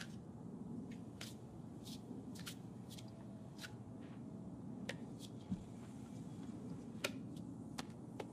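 Quiet room tone with a low hum and a dozen or so light clicks at irregular gaps, roughly one every half second to a second.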